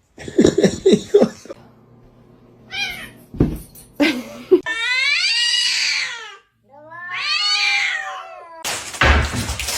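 A cat meowing: a few short calls, then two long drawn-out yowling meows whose pitch bends. A knock comes between the calls and a burst of noise near the end.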